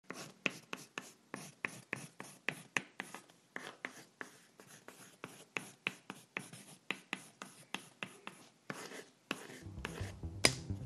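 Pencil scratching on paper in quick, short writing strokes, about three a second. A low rumble comes in near the end and grows louder.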